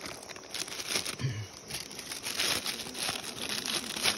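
Plastic snack packet crinkling as it is shaken and its contents poured out onto a leaf, an irregular run of rustling crackles.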